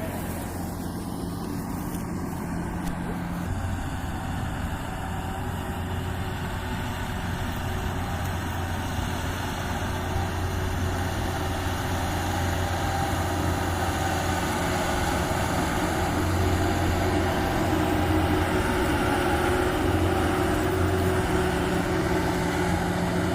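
Yanmar AW70 combine harvester's engine running steadily, growing a little louder from about the middle.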